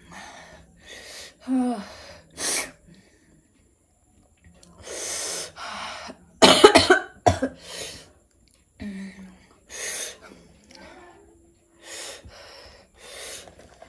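A woman coughing repeatedly and breathing hard between coughs, from the burn of extra-spicy noodles; a burst of hard coughing about halfway in is the loudest.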